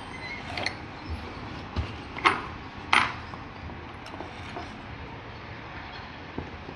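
Metal tools and washing-machine parts clinking and knocking during a hands-on repair: about five sharp knocks in the first three seconds, then only faint ticks.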